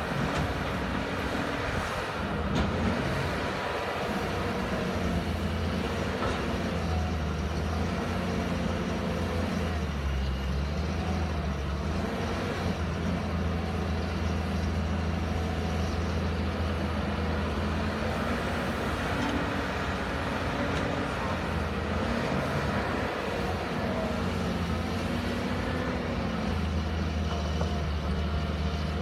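Caterpillar 320D tracked excavator's diesel engine running steadily under load, its note rising and falling every few seconds as the hydraulics work, digging and loading soil.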